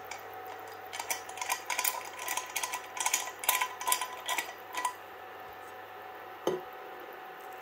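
A frying pan and its screw-on handle being handled, with a rapid run of small clicks and rattles for the first few seconds. Under this runs the steady hum of the induction hob's cooling fans. About six and a half seconds in there is a single soft knock as the pan is set down on the hob's glass top.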